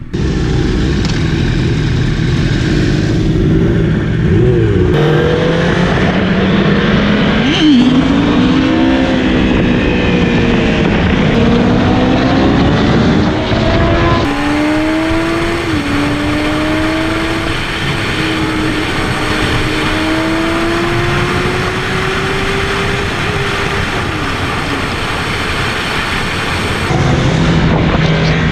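Yamaha R1 sport bike's inline-four engine under way, its pitch climbing under throttle and dropping back at each gear change.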